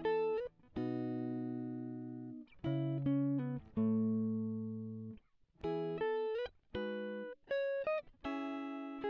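Background music: a melody of plucked-string notes and chords, each struck and then fading, with short gaps between phrases.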